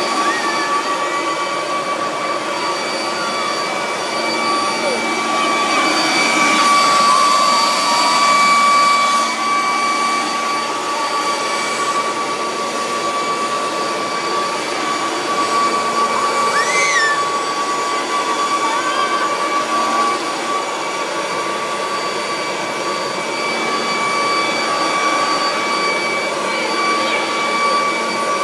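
Corded electric leaf blowers running continuously, a steady high-pitched motor whine over a loud rush of air.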